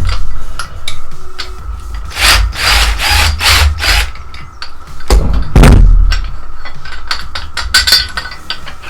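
Wrench work on the YZ250F's top engine mounts: metal clicks and scraping as the mount bolts are worked loose, with a heavy knock about five seconds in.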